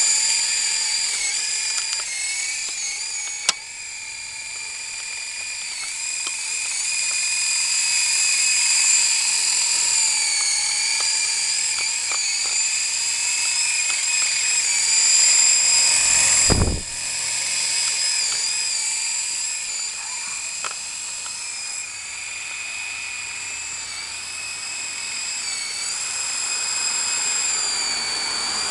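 Syma S033G RC coaxial helicopter's electric motors and rotors whining high and steady in flight, the pitch wavering slightly and the sound growing louder and softer. A short low thump a little past halfway.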